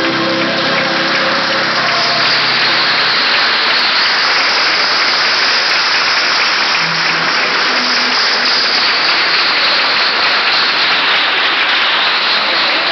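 A large audience applauding steadily, over the choir's last sung chord, which ends about three seconds in.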